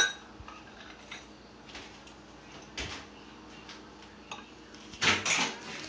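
A sharp click right at the start, like a cabinet door or drawer shutting, then a few faint knocks and handling sounds in a quiet room, with a louder rustle about five seconds in.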